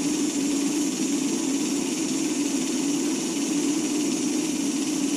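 Small electric wakasagi (smelt) ice-fishing reel winding in its line, its motor giving a steady, noisy whirr.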